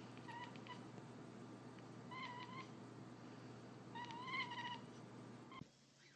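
A long-haired colorpoint cat giving soft, high chirping meows: a few short ones at first, three quick ones about two seconds in, then a longer wavering one around four seconds in.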